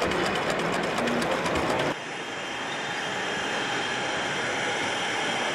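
Model train running on a layout, with a fast, even clicking for the first two seconds. An abrupt cut about two seconds in gives way to a steadier, smoother running sound.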